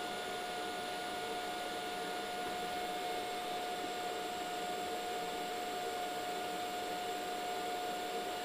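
Steady fan noise, a constant airy hiss with a steady hum-like whine and no welding crackle.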